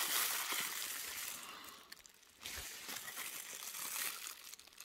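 Thin clear plastic bag crinkling as hands unwrap a Märklin model railway track piece, in two stretches with a short lull in the middle.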